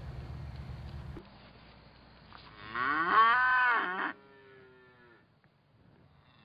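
A calf mooing once, about three seconds in: a loud call of a second and a half that rises and then falls in pitch. A low steady hum stops about a second in.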